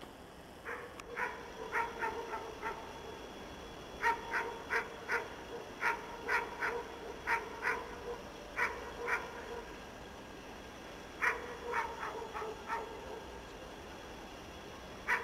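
A dog barking in volleys of two to five barks, with pauses of a second or more between them, over a faint steady hum.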